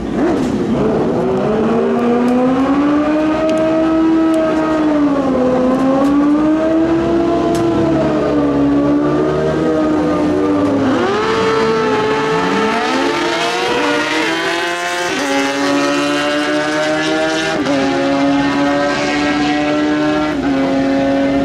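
Two drag-racing motorcycles revving up and down while staged at the start line, then launching at full throttle about eleven seconds in. The engine note climbs and drops back at each upshift, three times a couple of seconds apart.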